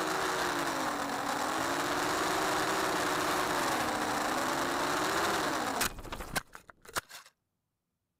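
Radio-controlled aircraft's motor and propellers heard from the onboard camera, a steady whine over a rushing hiss, its pitch rising and falling with the throttle. About six seconds in it crashes into the grass: a few sharp knocks, then the motor stops and all goes silent.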